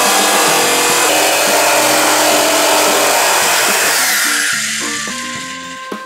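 Jigsaw running and cutting, trimming the corners of a square vent hole in a camper-shell wall, over background music. The saw fades out over the last two seconds, leaving the music.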